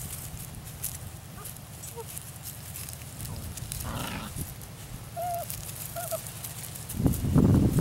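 Tamaskan puppies playing: a few faint, short high squeaks and yips, two of them close together near the middle. Louder rough scuffling noise comes in near the end.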